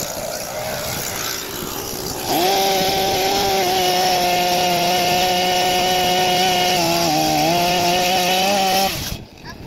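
Chainsaw idling, then throttled up to full speed about two seconds in and held there while cutting timber. Its pitch sags briefly about seven seconds in as the chain takes the load, and it stops abruptly about nine seconds in.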